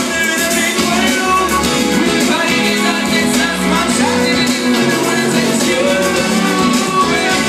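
Live music played loud through a hall's PA system, with vocals over a backing track from a DJ deck.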